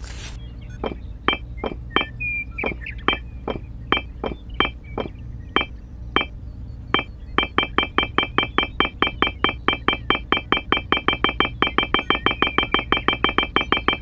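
A short, high plinking sound effect, identical each time, marking each miniature brick as it is laid. It comes irregularly at first, then about seven seconds in turns into a fast, even run of about five a second, over a low steady hum.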